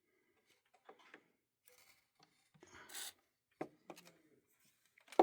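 Faint rubbing and scraping with a few clicks from hands working the controls of a valve radio while its crackling volume control is cleaned with WD-40. A short hiss comes about three seconds in, and a sharp click near the end.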